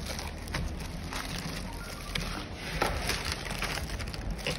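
Bubble wrap and plastic packaging rustling and crinkling as they are handled, with frequent small crackles and light taps.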